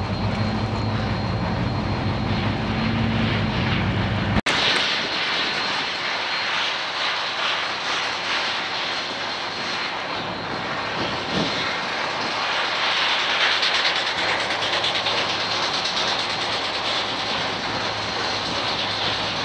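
Union Pacific 844, a 4-8-4 steam locomotive, standing with a steady roar and hiss of steam. About four seconds in the sound breaks off for an instant and returns with less low rumble and a brighter hiss.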